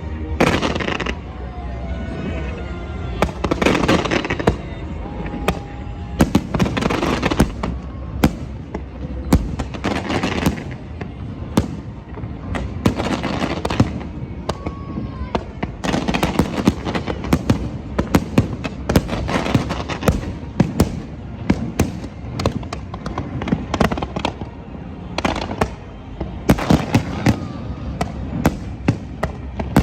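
Fireworks exploding in quick succession: many sharp bangs, one after another, with crackling between them.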